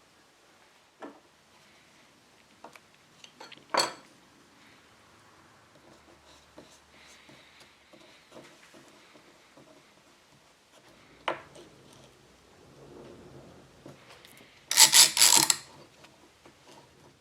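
Scattered taps and clicks of small tools and containers being handled on a wooden slab, with a short, loud rasping rattle about fifteen seconds in.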